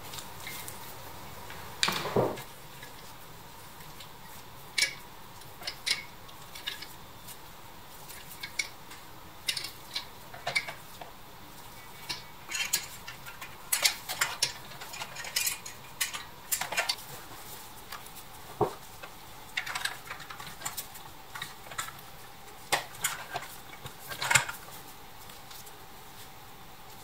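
Irregular clicks, clinks and taps of pressed-steel and plastic toy tractor parts being handled, fitted together and set down on a workbench, over a steady faint hiss.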